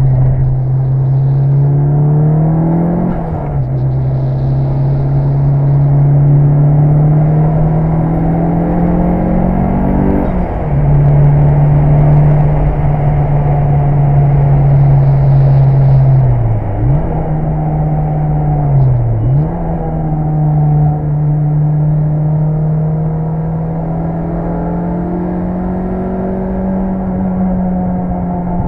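Mitsubishi Lancer Evolution VI Tommi Mäkinen Edition's turbocharged four-cylinder engine pulling hard, its pitch climbing slowly and dropping sharply at gear changes about 3 and 10 seconds in. Revs dip briefly and recover twice near the middle, then the engine holds fairly steady to the end.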